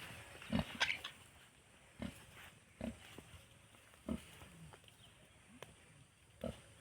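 Pigs grunting: short low grunts every second or so, with a sharper, higher call a little under a second in.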